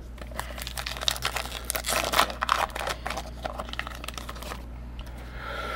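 A 2012 Topps Heritage trading-card pack wrapper being crinkled and torn open by hand: a dense crackle for about four seconds that thins out near the end.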